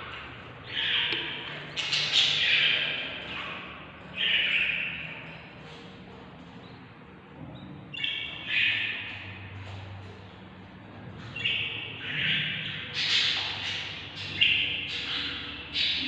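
Budgerigar chicks giving harsh food-begging calls in repeated bursts. The calls ease off briefly in the middle and then come thicker toward the end.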